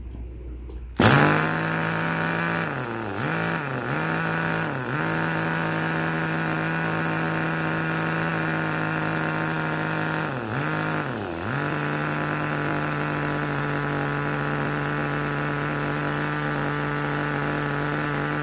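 Small two-stroke glow-plug nitro engine of a 1/10 RC car catching about a second in and then idling with a steady high buzz. Its speed sags and recovers three times soon after starting and twice more near the middle, as the carburettor is being adjusted on a still-cold engine.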